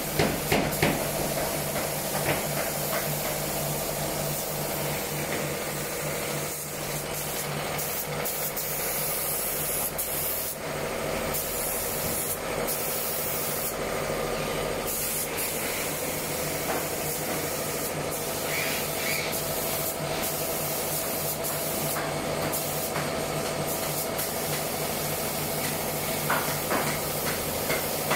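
A power tool worked over wooden benches, running steadily: a continuous hiss over a low hum, with a few sharp knocks right at the start.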